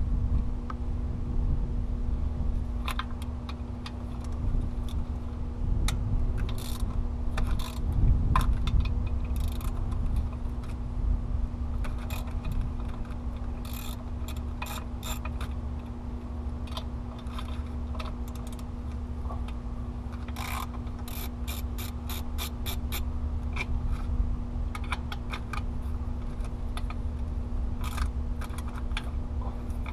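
Hand ratchet wrench clicking in quick runs, over and over, as bolts are loosened, with a steady low hum underneath.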